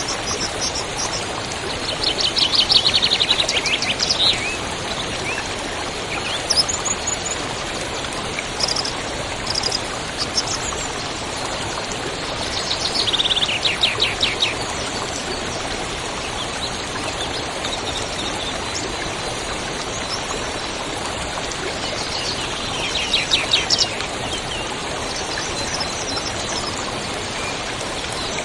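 Steady rush of a waterfall, with a songbird singing over it: three fast trills, each a run of quick notes falling in pitch, about two seconds in, about thirteen seconds in and about twenty-three seconds in, with a few short chirps between the first two.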